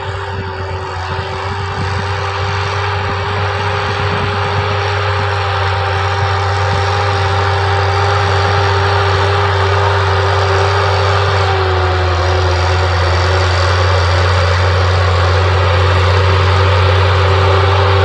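Case IH Puma tractor's diesel engine running steadily under load while pulling a disc harrow. The steady hum grows gradually louder as the tractor draws closer.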